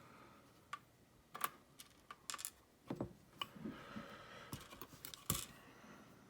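Small lock pins from a gutted padlock being tipped out and handled on a work surface: a scattered run of light clicks and taps, the loudest a little past five seconds in.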